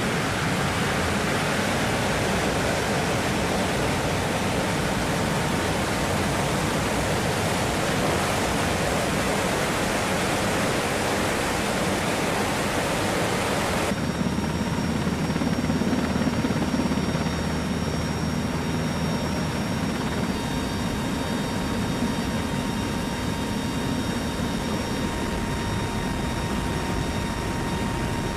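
Steady roar of a C-130 tanker's turboprop engines and airstream, heard from inside the aircraft. About halfway through it changes to a deeper, steadier hum with a few faint whining tones.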